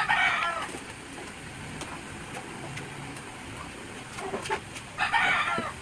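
A chicken calling twice, about five seconds apart, each call short and loud, with faint scattered knocks between.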